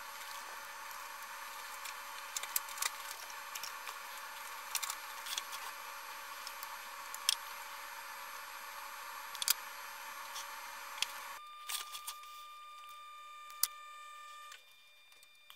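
Scattered small clicks and taps as hands handle wires, connectors and small electronic parts on a workbench, over a steady hiss with a faint high whine. The background hiss drops away about eleven seconds in.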